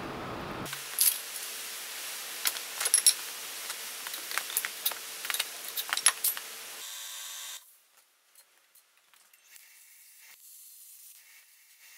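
Sharp metallic clicks and clinks, irregular and a dozen or so over about five seconds: a thin steel strip being handled and clamped in a hand-operated sheet-metal folder to fold a short flat edge.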